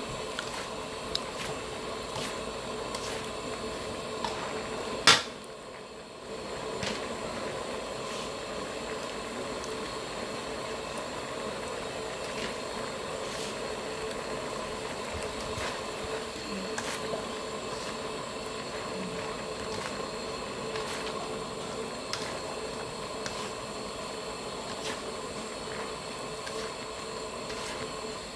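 Squid and vegetables stir-frying in a steel wok, a steady sizzle under a constant hum, with a metal spatula scraping and tapping the pan now and then. There is one sharp, loud knock about five seconds in.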